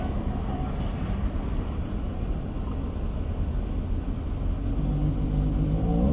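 Road traffic passing in the street: a steady low rumble that grows louder toward the end, with a sharp click at the very start and a low steady tone coming in near the end.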